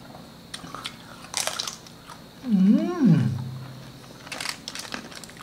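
Crispy fried pork belly (lechon kawali) being bitten and chewed: crunches about a second in and again near the end. Between them comes a loud, drawn-out hum of enjoyment that dips, rises and falls in pitch.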